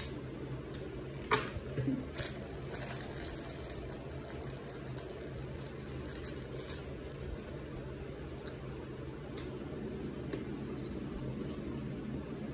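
Scattered small clicks and crackles of candy being eaten and handled at a table, busiest in the first few seconds and sparse after, over a steady low hum.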